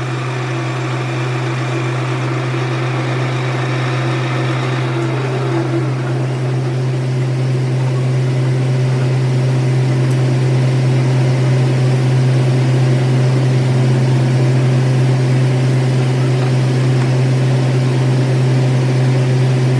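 Workshop machine running with a steady low hum that grows slightly louder over the stretch.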